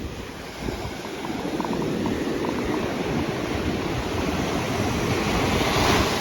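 Ocean surf: a wave washing in, its rush building over several seconds and peaking near the end before easing off.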